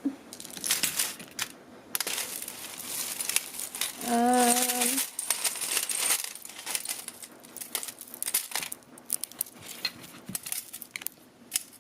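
Costume jewelry clinking and jingling as metal pieces and chains are handled and sorted, with a brief hum from the woman about four seconds in.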